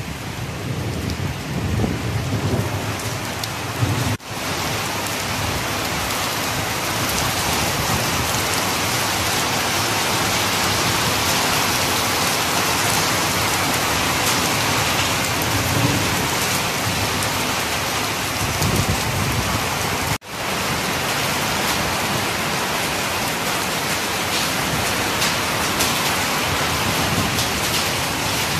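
Heavy rain falling steadily in a downpour, with rain splashing on a flooded flat roof. The hiss cuts out briefly twice.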